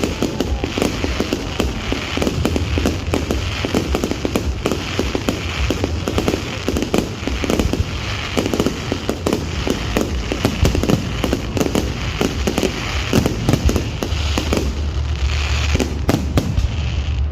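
Fireworks display going off in a rapid, continuous barrage of bangs and crackling.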